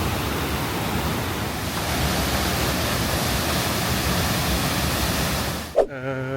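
Waterfall: a loud, steady rush of falling water that cuts off abruptly near the end, followed by a person's voice.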